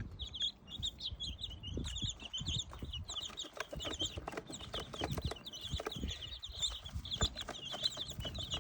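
A flock of young chicks peeping continuously, many at once, in short high chirps, with scattered light taps and knocks among them.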